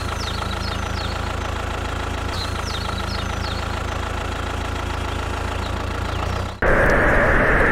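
Engine idling steadily, with faint bird chirps above it. Near the end it cuts abruptly to a louder, steady rushing noise.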